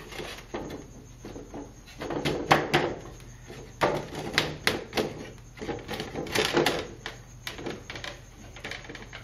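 Interlocking wooden stool parts knocking and rubbing as the foot ring is worked down over the legs toward its notches: irregular clicks, taps and short scrapes in clusters, the loudest knock about two and a half seconds in.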